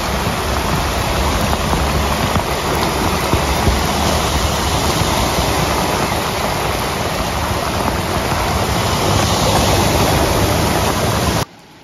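Heavy downpour mixed with the spray of cars and vans driving through a flooded road, a loud, steady rushing. It swells as a car passes close near the end, then cuts off suddenly.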